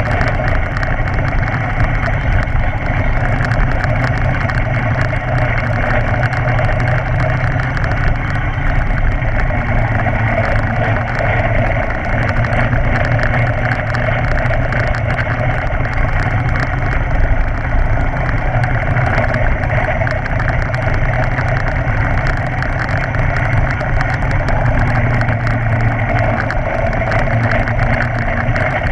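Small go-kart engine running steadily as the kart drives along the track, with no sharp revving or stops.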